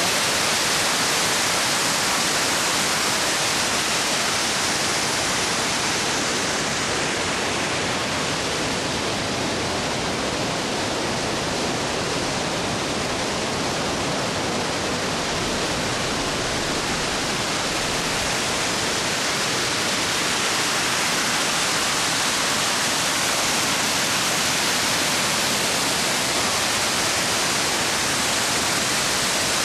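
Waterfall rushing: a steady hiss of water cascading over rock, dipping slightly in loudness midway.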